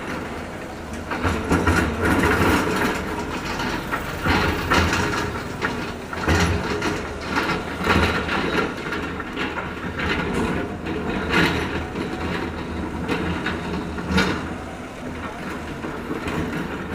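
Heavy construction machinery running with a low engine hum, with irregular clanks and knocks throughout.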